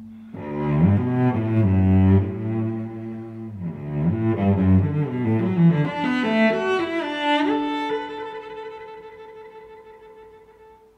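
Background music on bowed strings: a melody that climbs to higher notes about six to seven seconds in, then settles on a long held note that fades out near the end.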